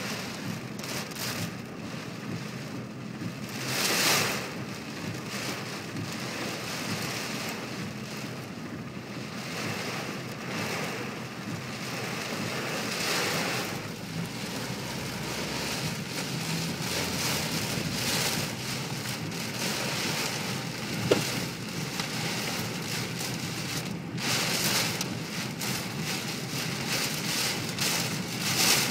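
Heavy typhoon rain: a dense, steady rush that swells several times, most strongly about four seconds in. There is a single sharp click a little after twenty seconds.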